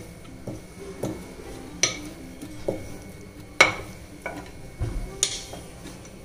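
Wooden rolling pin working a thin sheet of oiled parotta dough on a stone countertop, with soft rolling and rubbing and a few sharp clicks as the pin knocks the counter.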